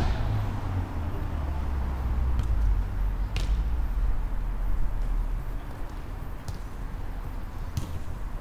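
Steady low rumble with a few sharp knocks, about three and a half, six and a half and nearly eight seconds in, typical of a football being kicked.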